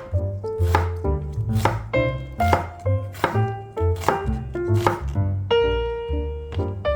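Kitchen knife chopping on a cutting board, a sharp chop every half second to a second. Light piano background music plays underneath.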